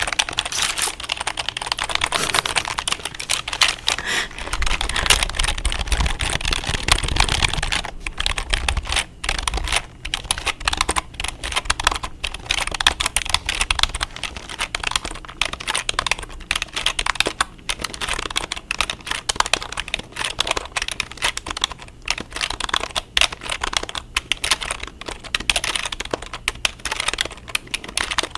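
Fast typing on a computer keyboard: a dense, continuous run of key clicks, heaviest during the first several seconds.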